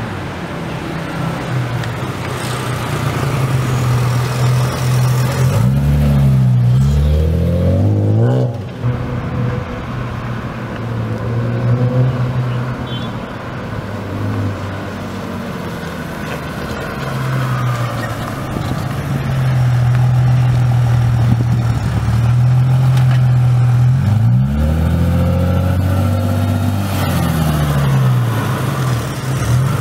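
BMW M Roadster's straight-six engine running as the car drives by, a steady note whose pitch swings down and back up twice, around six and twenty-five seconds in.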